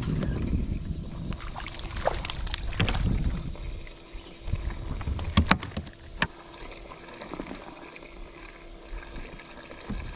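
Low rumbling noise with a scatter of sharp knocks and clicks; the rumble drops away about four seconds in, and the loudest knocks come near the middle.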